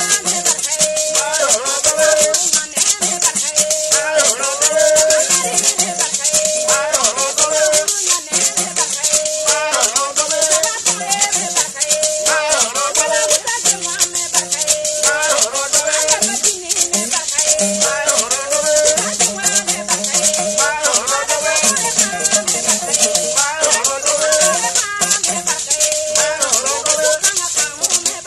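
Traditional Bissa griot music: gourd rattles shaken in a fast, steady rhythm over a wavering sung melody, with a koni, a gourd-bodied lute, played underneath.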